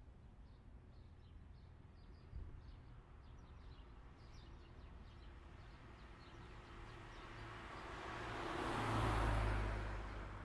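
Street ambience: small birds chirping again and again, and a car passing that swells to its loudest about nine seconds in, then fades.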